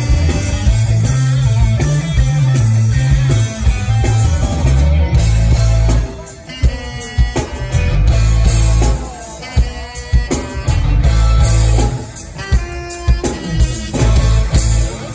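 Live reggae band playing an instrumental intro: electric guitars, bass and drum kit. The bass drops out for brief breaks three times, about six, nine and twelve seconds in, then comes back in.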